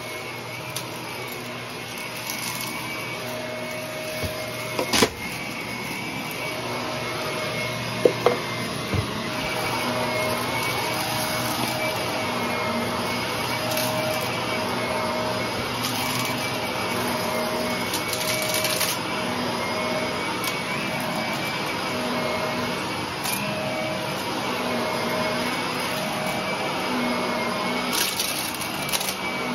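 Shark upright vacuum running with its brushroll on thick carpet: a steady motor with a high whine. Its tone shifts about every two seconds as it is pushed back and forth. It gets louder about ten seconds in, and a few sharp cracks come about five and eight seconds in.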